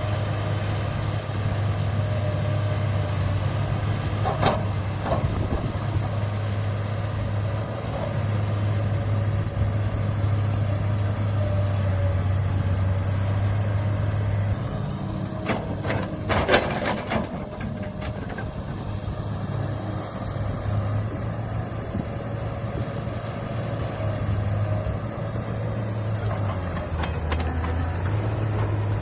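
Heavy diesel earthmoving machinery running steadily under a low engine hum, with sharp metal clanks about four seconds in and again a few times around the middle. The engine note dips briefly near the end.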